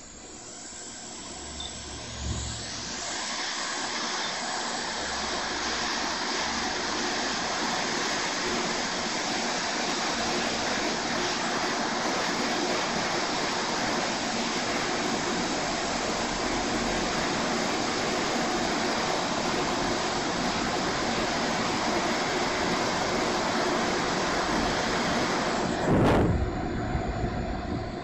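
Hot air rework station blowing a steady rush of air, building up over the first few seconds, while reflowing solder to seat a replacement MOSFET on a laptop motherboard. A brief louder bump near the end, after which the rush is a little quieter.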